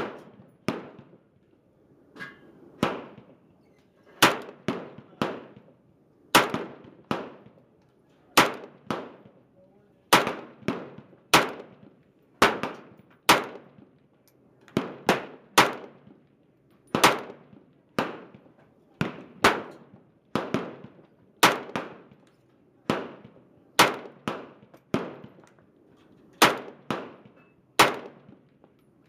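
Romanian AK-47 rifle fired semi-automatic in a long string of single shots, roughly one to two a second at an uneven pace, each a sharp crack with a short ringing tail. These are the rifle's first rounds, and it cycles without any failure to feed or eject.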